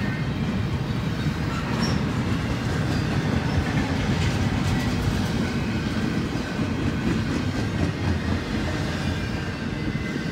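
Double-stack intermodal container freight train rolling past at close range: a steady rumble and clatter of steel wheels on the rails.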